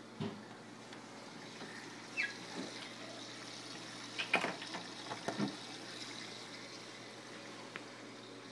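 Aquarium water running and trickling steadily, with a few short clicks, knocks and splashes between about four and five and a half seconds in.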